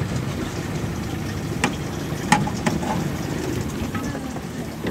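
A boat's outboard motor idling with a steady low rumble, with a few sharp knocks on top.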